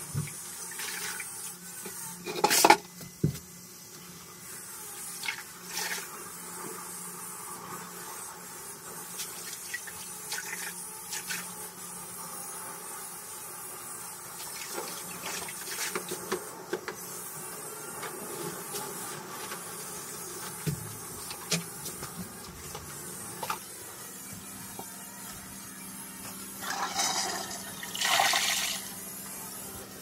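Water sloshing and dripping as a rag is dipped and wrung in a bucket and rubbed over a tiled floor, with scattered splashes and a loud clatter about two and a half seconds in. Near the end, a newly installed toilet flushes with a rush of water lasting a couple of seconds.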